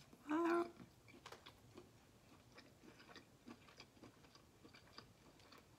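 Close-miked chewing of a bite of chicken sausage: many small, soft wet clicks spread through, with a short hummed "mmm" about half a second in.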